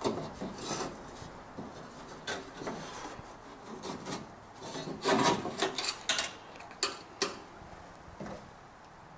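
A sheet-metal repair piece being rubbed and scraped against a car's cowl as it is test-fitted by hand, in short irregular scrapes, the loudest about five seconds in.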